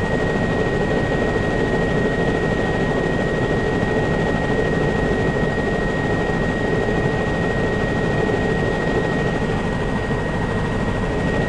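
Aircraft engine and airscrew noise heard from inside the cabin in flight: a steady drone with a thin, constant high whine over it.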